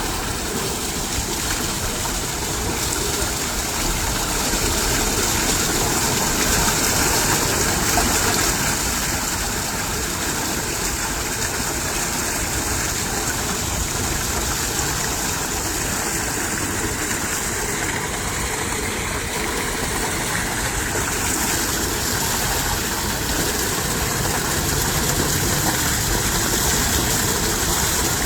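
Steady rushing of flowing water, an even continuous noise with no breaks.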